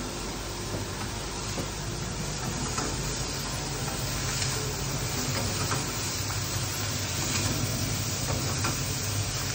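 Coffee roaster's cooling tray running: a steady rush of air from the cooling fan, with roasted beans rattling faintly as the rotating arms stir them. The beans are being cooled at the end of a roast.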